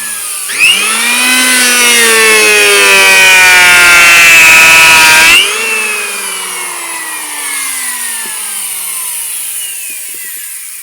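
Makita electric hand planer starting up with a rising whine, running for about five seconds with a rough scraping noise under the whine, then switched off about five and a half seconds in, its cutter head winding down with a slowly falling whine.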